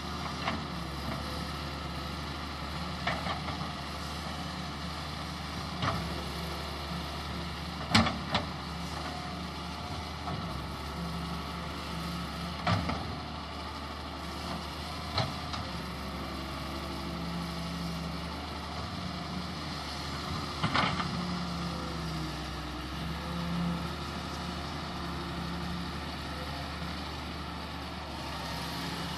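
Wheel excavator's diesel engine running steadily, with a sharp knock every few seconds, the loudest about eight seconds in.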